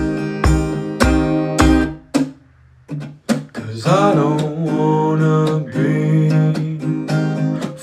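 Song played on strummed acoustic guitar. The music drops out briefly about two seconds in, then the guitar returns with a wavering melodic line over it.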